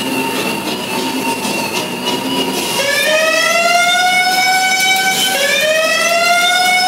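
Alarm siren sound effect at a stunt show: a steady tone at first, then from about three seconds in a wail that climbs in pitch and holds. The wail repeats about every two and a half seconds.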